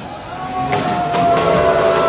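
Bowling ball rolling down a wooden lane with a steady low rumble, and a long held cheer rising over it from about a third of a second in.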